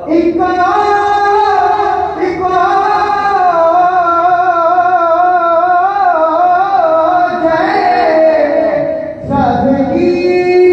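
A naat, a devotional song in praise of the Prophet Muhammad, sung by a solo voice in long, held notes that waver with ornaments. The voice breaks off briefly about nine seconds in, then takes up the line again.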